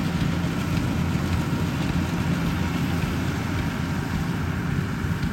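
Yanmar 850 combine harvester's diesel engine running steadily under load as it works through a rice field, a constant low drone.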